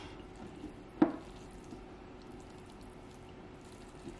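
Wooden chopsticks mixing sauced buckwheat noodles in a ceramic bowl, with soft wet squishing. One sharp tap about a second in.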